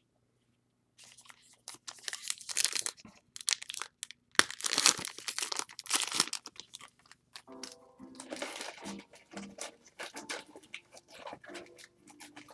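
Retail trading-card pack wrapper being torn open and crinkled by hand, in irregular bursts of tearing and crackling, loudest in the first half.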